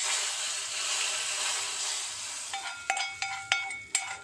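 Hot tempering oil with red chilli poured into a pot of moong dal nimona, sizzling sharply the moment it hits and then slowly dying down. From about two and a half seconds in, a steel spoon scrapes and knocks against the small frying pan with several ringing clinks.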